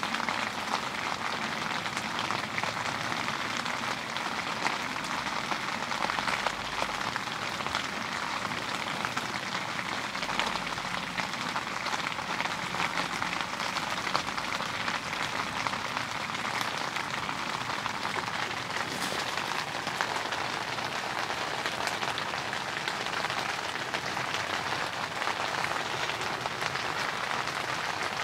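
Heavy rain falling steadily, a dense, even patter of many drops.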